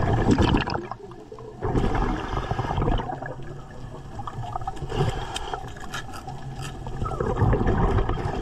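A diver breathing underwater through a surface-supplied (hookah) regulator: air rushing and exhaled bubbles, rising in surges every few seconds.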